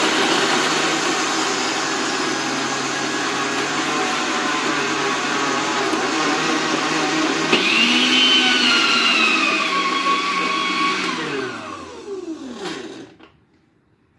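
Electric grinder motor running at full speed, grinding roasted peanuts into paste. About halfway through, its pitch changes as the load shifts. Near the end it is released and winds down with a falling whine, then stops.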